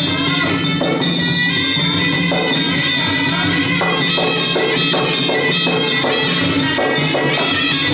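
Traditional Khmer boxing ring music: a nasal reed oboe (sralai) playing a sustained, wavering melody over steady hand-drum beats and the clink of small cymbals.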